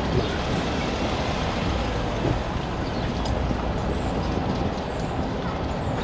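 Street traffic noise: a car driving past close by on brick pavement, a steady low rumble of engine and tyres.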